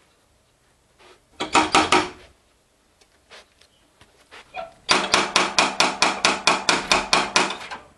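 Knocking on a wooden door: a short burst of knocks about a second and a half in, then a long, fast, insistent run of knocks at about six a second.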